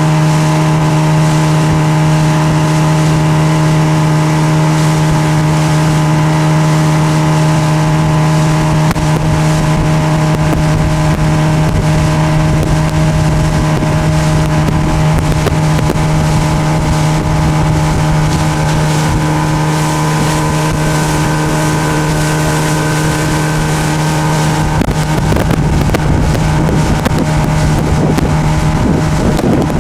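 Mariner 20 outboard motor running at a steady, even speed, driving a small inflatable boat under way, with wind on the microphone. Near the end a rougher rushing noise joins in.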